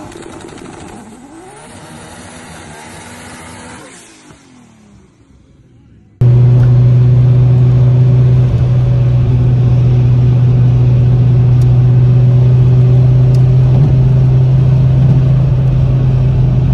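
A short intro sound effect with sweeping, gliding tones, then from about six seconds in the loud, steady drone inside the cabin of a built Vauxhall Astra Coupe cruising at motorway speed. Its Z20LET 2.0-litre turbocharged four-cylinder holds one steady pitch, mixed with road and wind noise.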